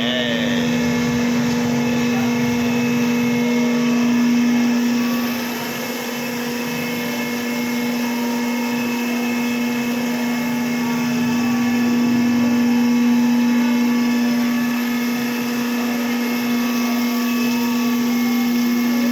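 Machine-shop machinery running with a steady, constant hum.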